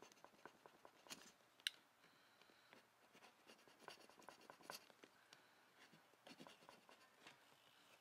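Faint scraping and small clicks of a knife cutting soft plastic mounting tabs off the back of a car badge, with one sharper click a little under two seconds in.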